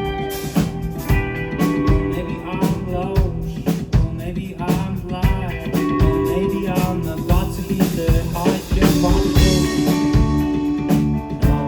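Live rock band playing: electric guitars over a drum kit keeping a steady beat, with a sung or guitar melody line, heard as an audience recording in a club.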